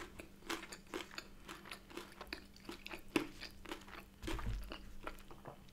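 Close-up mouth sounds of chewing a soft brioche bagel loaded with air-fried bacon and cream cheese: wet smacks and clicks a few times a second. A short low rumble comes about four and a half seconds in.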